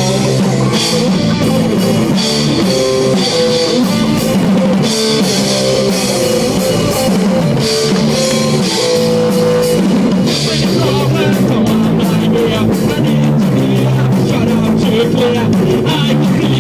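Punk rock music: electric guitars and a drum kit playing a steady, loud rock groove.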